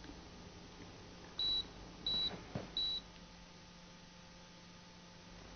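Three short, high-pitched electronic beeps, evenly spaced about two-thirds of a second apart, over a faint steady hum.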